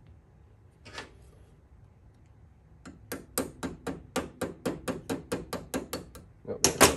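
A small part being tapped into a Honda Z50 motorcycle carburetor: one tap, then a quick even run of light taps at about four a second, ending in two harder knocks.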